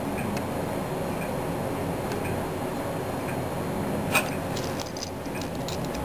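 Small clicks from an airsoft pistol's trigger-mechanism housing being handled and probed with a small screwdriver: one sharp click about four seconds in, then a quick run of lighter clicks. Underneath are a steady background hum and a faint tick about once a second.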